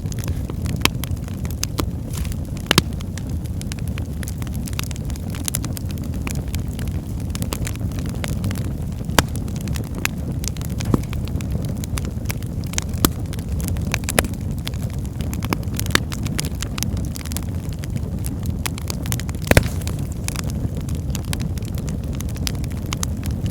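Wood fire burning in a fireplace: a steady low rumble of flames with scattered sharp crackles and pops, the loudest pop a few seconds before the end.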